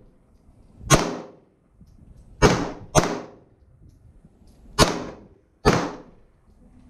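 Five 9mm pistol shots from an Arsenal Firearms Strike One Speed, fired at an uneven pace: a pair close together, then singles. Each is a sharp crack with a brief fading echo.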